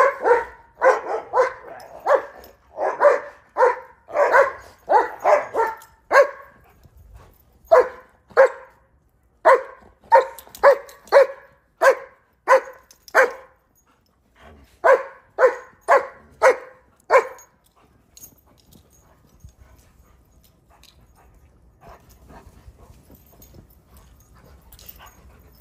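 Dogs barking in play as they chase and wrestle, short barks at about two a second in runs with brief gaps. The barking stops about two-thirds of the way in, leaving only faint noise.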